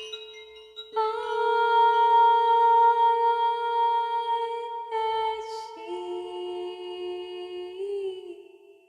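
A voice singing long, held notes of a meditative chant, entering about a second in and stepping down in pitch twice around the middle, with a slight waver near the end before it fades.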